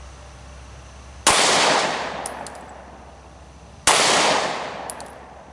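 Two shots from a Glock 43 9mm subcompact pistol, about two and a half seconds apart, each ringing out and fading over about a second and a half. A light metallic clink follows about a second after each shot.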